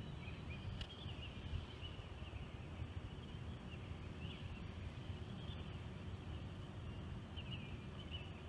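Outdoor ambience: a steady low rumble of wind on a phone microphone, with faint, scattered high chirping of distant birds throughout.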